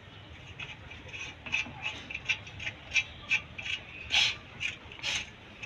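A run of short sharp clicks and taps, roughly three a second, starting about a second and a half in, over a low steady hum; typical of tools or hands working on parts in a car's engine bay.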